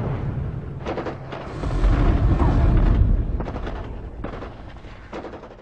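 Cinematic battle sound effects: a deep booming rumble with several sharp, shot-like bursts, the loudest swell about two to three seconds in, then fading away near the end.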